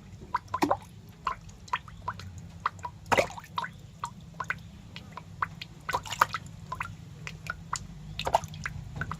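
A snail feeding close to the microphone: irregular small wet clicks and crackles, several a second, over a low steady hum.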